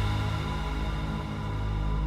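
Scary background music: a low droning synth bed with held, sustained tones.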